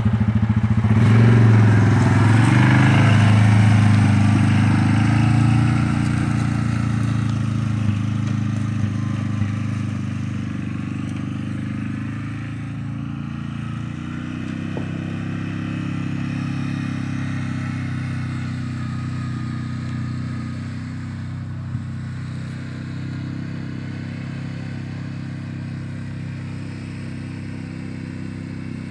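Side-by-side UTV engine accelerating away and driving off, its steady running sound fading as it moves into the distance.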